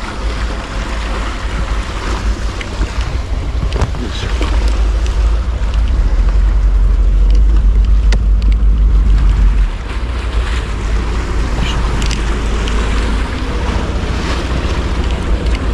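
Boat engine running close by, with waves and wind buffeting the microphone. The low rumble swells a few seconds in and drops suddenly near the ten-second mark.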